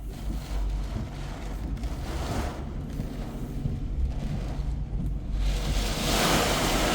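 Hurricane wind buffeting the microphone: a steady low rumble with gusts, the strongest about six seconds in.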